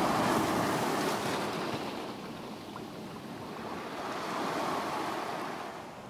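Sea surf washing in over low shore rocks. It swells once just after the start and again about four seconds in, then fades away near the end.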